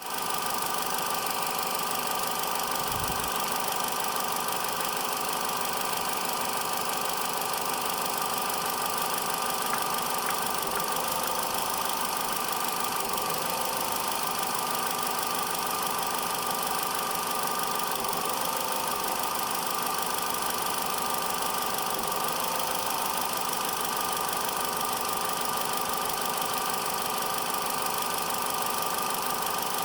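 2013 Corsa 1.4's four-cylinder petrol engine idling steadily, broken by an intermittent knock about 10, 18 and 22 seconds in as the revs dip slightly. The owner takes the knock for a misfire.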